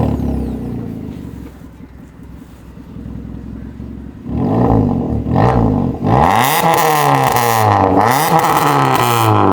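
Stage 2 remapped Maruti Ignis petrol engine through a decat, valved aftermarket exhaust. It comes in loud at the start and settles to an idle, then from about four seconds it is blipped in a run of quick revs, the pitch rising and falling each time.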